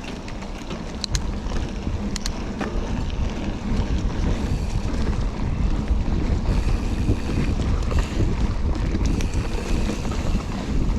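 Wind buffeting a GoPro's microphone while riding a mountain bike, with the low rumble of tyres rolling over the trail. A few sharp clicks and rattles come in the first couple of seconds.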